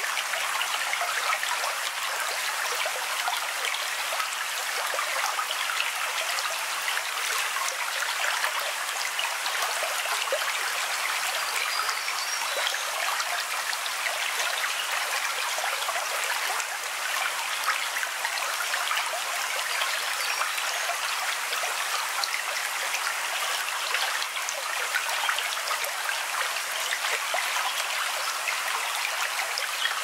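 Running water of a stream: a steady, even splashing hiss with no deep rumble.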